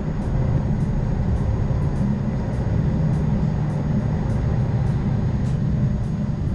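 Steady low rumble inside the cabin of a Dassault Falcon 2000 twin-engine jet rolling on the ground after landing: engine and wheel noise, with faint light ticks over it.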